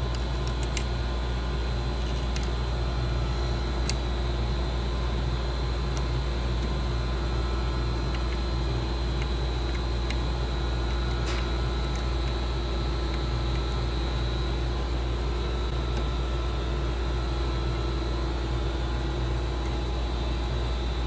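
Steady low mechanical hum of workshop equipment, with a few faint clicks as a gunsmith screwdriver turns the lock bolts in.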